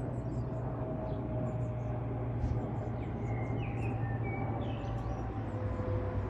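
Boeing 777 jet airliner passing overhead at altitude: a steady low engine rumble with faint steady whining tones above it. A few faint chirps come in the middle.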